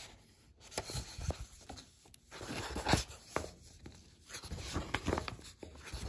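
Paper pages of a cookbook being turned and leafed through by hand, rustling in a series of short bursts with soft knocks as the pages flop over.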